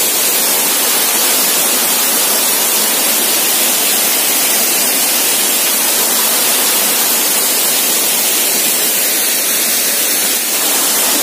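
Waterfall rushing steadily: a loud, even hiss of falling water with no lulls.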